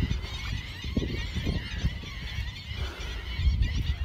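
Black-winged stilts calling, many short high calls, over a low rumble of wind on the microphone.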